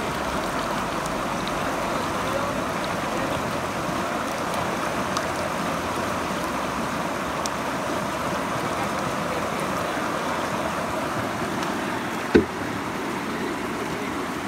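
Steady rush of flowing river water, with one sharp thump about twelve seconds in.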